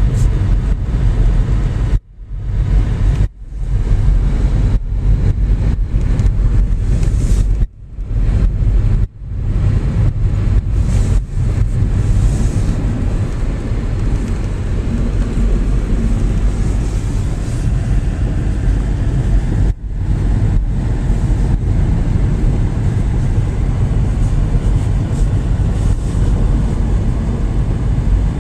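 A car driving, its road and wind noise heard as a steady loud rumble from within the moving car, cut by several sudden brief drops in the first third.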